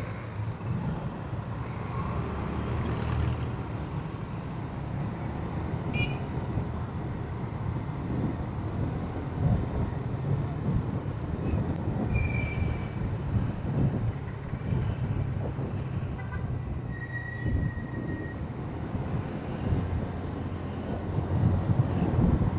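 Motorcycle engine running while riding in city traffic, with the rumble of surrounding vehicles. A few short high tones sound around the middle, and the rumble grows louder near the end.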